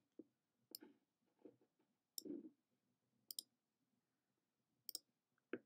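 A few faint, widely spaced clicks of a computer mouse, with one soft low thump between them, over near silence.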